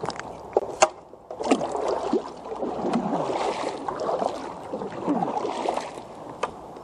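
A kayak being paddled along a river: water splashing and gurgling against the hull, with a few sharp knocks in the first second and one more near the end.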